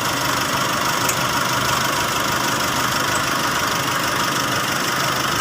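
Car engine idling steadily with its belt-driven accessories (alternator, belt tensioner, aircon compressor) turning, heard as an even, unchanging whirring hiss.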